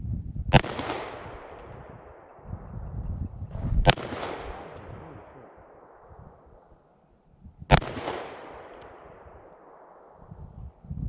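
Three handgun shots about three to four seconds apart, each a sharp crack followed by a long fading echo.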